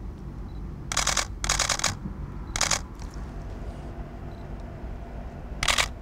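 Camera shutter firing in rapid continuous-shooting bursts: two bursts close together about a second in, another near three seconds, and a short one near the end, over a steady low rumble.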